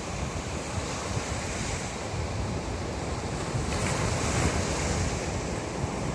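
Sea surf washing onto the shore, with wind buffeting the microphone in gusts; a brighter hiss of washing water swells a little under four seconds in and fades.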